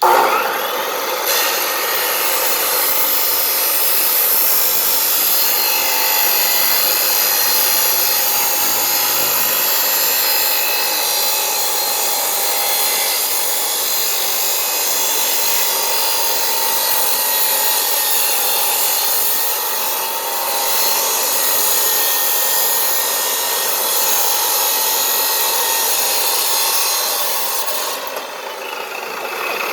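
Makita 14-inch chop saw with an abrasive wheel, running at full speed and grinding through a plastic Xbox 360 controller: a loud, continuous harsh grind that starts abruptly and dips briefly near the end.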